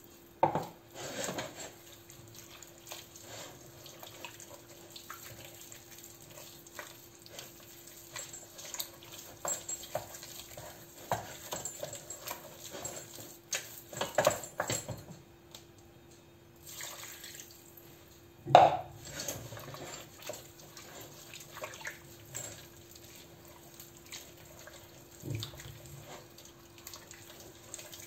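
Wooden spoon scraping, stirring and knocking in a stainless steel pot, working a thick, wet flour-and-milk paste for béchamel, with wet squelching from the dough. Strokes come irregularly, one knock about two-thirds of the way through much louder than the rest, over a faint steady hum.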